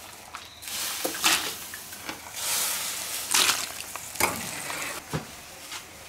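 Green beans and hot water being lifted from a boiling wok with a perforated skimmer ladle, water splashing and draining back in several short bursts over the bubbling pot. The beans are being blanched and moved to cold water so they can be frozen.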